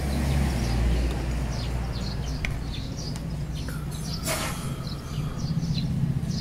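Small birds chirping repeatedly over a steady low rumble, with one short noisy burst about four seconds in.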